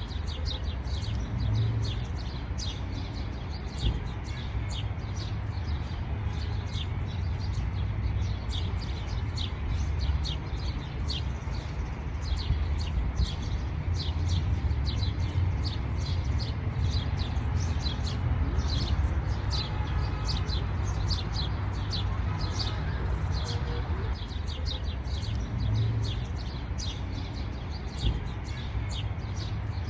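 Many small birds chirping continuously, short high chirps coming several a second, over a low steady rumble.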